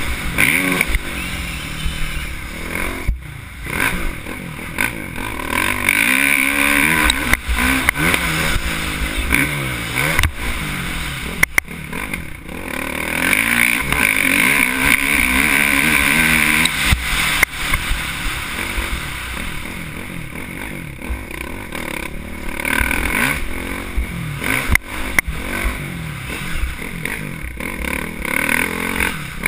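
Dirt bike engine revving up and down with the throttle while riding a rough trail, louder for a couple of long pulls in the middle. Scattered sharp knocks and rattles come from the bike hitting bumps.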